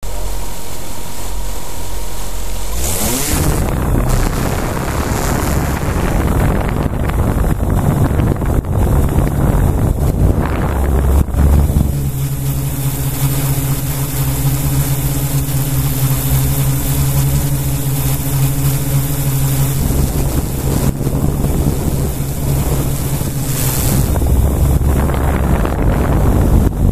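Drone's motors and propellers spinning up about three seconds in for takeoff, rising in pitch, then running loudly through the climb, heard from the onboard microphone with wind buffeting it. A steady motor hum stands out in the middle stretch.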